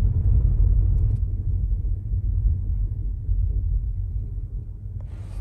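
Low rumble of an electric car's tyres rolling over beach sand, heard from inside the cabin, with no engine note. It gradually gets quieter as the car slows.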